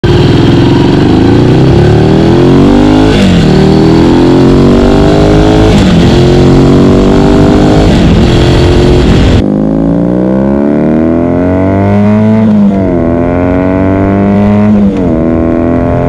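Ducati Scrambler Desert Sled L-twin with a full Termignoni exhaust accelerating hard, rising in pitch through the gears with several upshifts. About nine seconds in it cuts to a BMW R nineT boxer twin with a Unit Garage slip-on, accelerating and shifting up twice.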